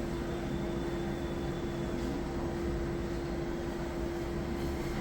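Steady mechanical hum with one constant mid-pitched tone running through it.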